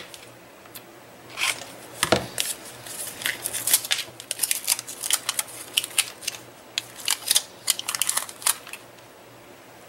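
Aluminum foil tape being cut with scissors and handled: irregular crisp snips, crinkles and ticks, with one heavier knock about two seconds in, and the tape's backing being peeled off.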